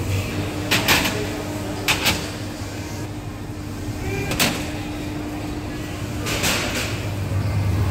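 Buffet restaurant ambience: a steady low hum under scattered sharp clicks and knocks, a few in the first two seconds, one about halfway and one near the end, with background voices.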